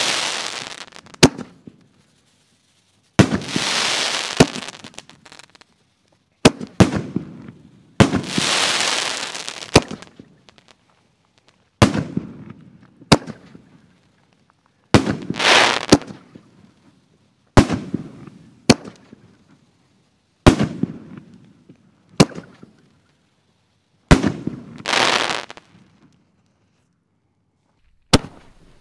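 6-inch canister firework shells fired one after another from fiberglass mortar tubes: a sharp boom every few seconds, several followed by about a second of hissing crackle.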